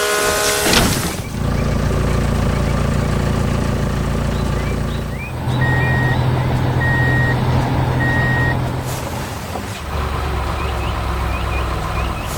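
Heavy truck engine running steadily while a reversing alarm beeps three times in the middle, about a second apart. A short hiss of air sounds near the start.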